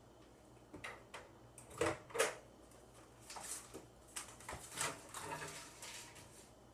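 Household objects being handled: light clicks, then two sharp knocks about two seconds in, followed by a few seconds of rustling and clattering.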